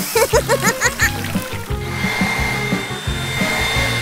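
Background music with a repeating bass line. A run of quick chirping sound effects plays in the first second and a half, then a steady high whine comes in for the rest.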